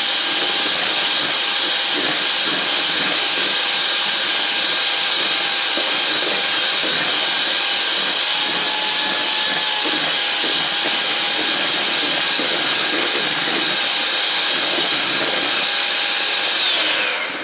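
Electric hand mixer running steadily, its beaters whipping heavy cream in a stainless-steel bowl as it thickens toward peaks. Near the end it is switched off and its whine falls away as the motor winds down.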